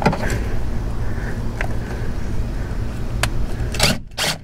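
DeWalt cordless drill/driver run in short bursts to back out a screw from the car's plastic fender liner, with a couple of sharp clicks and two louder knocks near the end, over a steady low hum.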